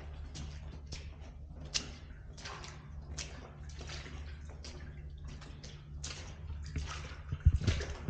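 Footsteps splashing through shallow water and mud inside a corrugated metal culvert pipe, about one to two steps a second over a steady low hum. A louder low thump comes near the end.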